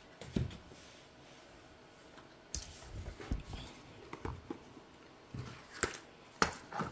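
Small cardboard product boxes and bottles being handled and set down on a hard floor: a scattering of light knocks and rustles, the sharpest two close together near the end.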